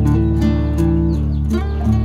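Background music: a melody of plucked notes over a steady low bass note.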